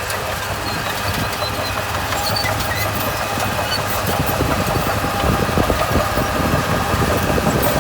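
Heavy construction machine's diesel engine running steadily under a continuous rattle and crunch of gravel and stones, getting a little louder about halfway through.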